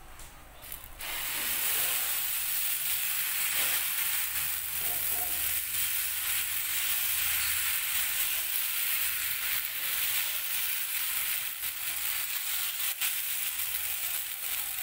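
Dosa batter sizzling on a hot tawa as it is poured and spread in a spiral with a ladle. The hiss comes up about a second in and then holds steady.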